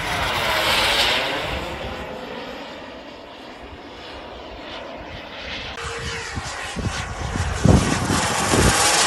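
Model turbine engine of a Tomahawk Aviation Futura radio-controlled jet flying past, its whine sweeping in pitch and swelling loudest about a second in and again near the end. A few low rumbles come in just before the end.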